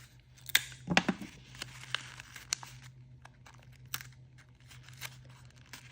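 Paper crinkling and sticky tape being pulled and torn while a stuffed paper squishy's edges are taped shut, in short irregular crackles and snaps.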